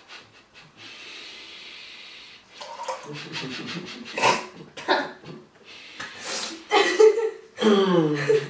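A woman sputters a mouthful of water back into a mug with a hiss of breath. Fits of breathy laughter follow, ending in a longer, fuller laugh.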